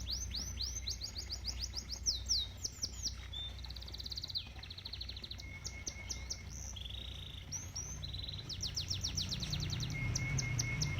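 Domestic canary singing: fast trills of repeated high notes that slide downward, switching to a new phrase every second or so, with a brief buzzy roll about seven seconds in. Koi-pond water runs beneath as a steady low rumble.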